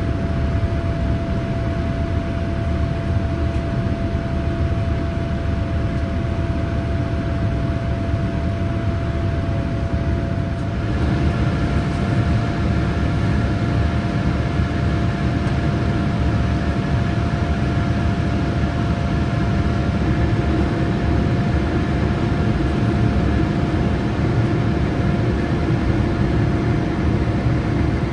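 Steady airliner cabin noise inside a Boeing 787-8 in flight: a constant rush of air and engine noise with a faint steady tone, its character shifting slightly about eleven seconds in.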